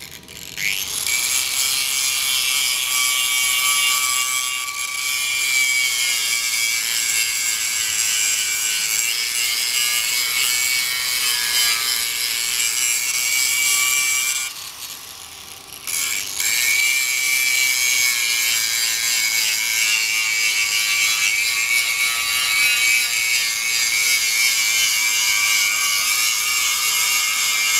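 Electric disc sander (angle grinder) grinding rust and scale off a steel plate: the motor spins up with a rising whine about half a second in, then runs with a steady high whine over the harsh scraping of the disc on the steel. The sound drops away for about a second and a half past the middle, then resumes.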